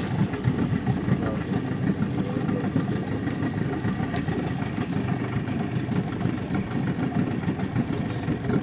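Boat engine idling steadily.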